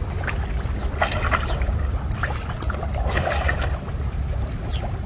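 Muddy water splashing and dripping as a cast net is hauled out and gathered by a man wading in a shallow pond, with scattered sloshes, the busiest about a second in and about three seconds in, over a steady low rumble.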